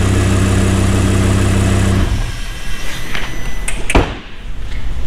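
A car engine idling steadily, cutting off abruptly about two seconds in. Quieter shop noise follows, with one sharp thump near the end.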